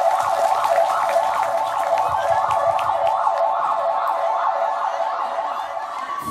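Emergency-vehicle siren in a fast rising-and-falling yelp, about two sweeps a second, cutting off suddenly near the end.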